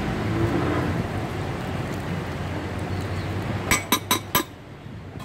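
A metal spatula spreads masala across a dosa on a griddle, over steady street noise. About three and a half seconds in come four sharp metal clinks in quick succession, metal utensils knocking together.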